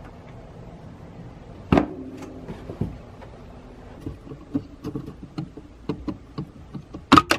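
Small plastic clicks and knocks of hands working a tail-light wiring clip and bulb holder behind the trim of a 2003 Saab 9-3's trunk, over a steady low hum. There is a sharp click about two seconds in. A loud double snap near the end is the bulb-holder assembly pulling free.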